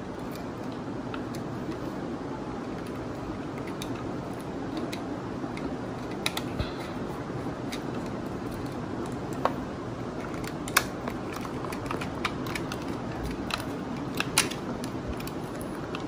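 Scattered light clicks and taps of wires and a screwdriver handled against a plastic water-heater switch as stripped wire ends are fed into its terminals, over a steady background hiss.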